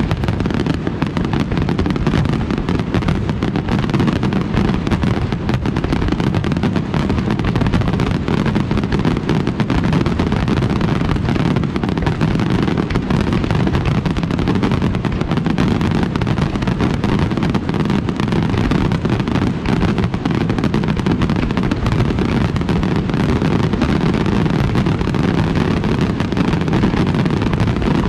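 Fireworks display firing a dense, continuous barrage, the bangs running together into an unbroken low rumble with crackling on top.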